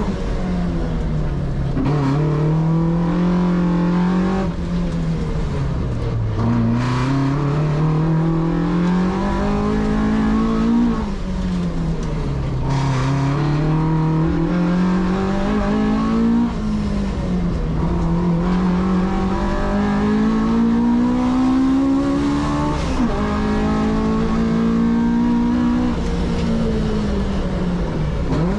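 Car engine heard onboard at racing speed, revving up through the gears of its six-speed manual gearbox. The pitch climbs steadily several times and falls back at each shift or braking point.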